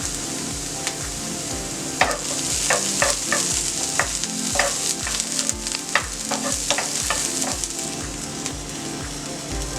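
Diced onion sizzling in hot coconut oil in a pan, with a utensil scraping and knocking against the pan as it is stirred, from about two seconds in until near the end.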